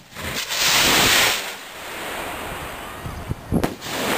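Black-powder skyrocket launching: a loud hiss of its motor for about a second, dropping to a fainter rushing as it climbs, then a sharp pop near the end as its heading bursts.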